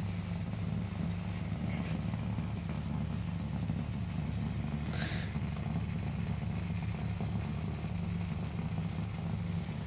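Conair handheld vibrating massager running on a wooden floor, its motor giving a steady low buzz.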